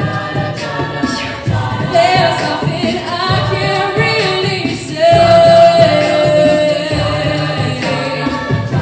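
All-female a cappella group singing live: layered harmonies over a pulsing low vocal line, with no instruments. About five seconds in, a lead voice holds a long, loud note, the loudest part.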